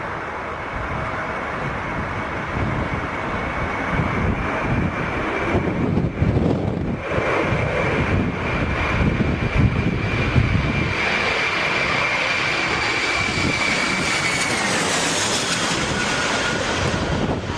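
Twin-engine jet airliner on landing approach, its turbofan engines giving a steady high whine that drops in pitch near the end, over a gusting rumble of wind on the microphone.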